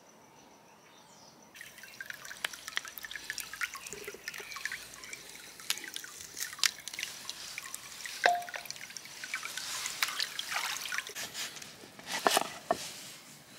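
Liquid crackling and dripping, a dense run of small clicks and trickling that starts suddenly about a second and a half in, with a few louder clicks near the end.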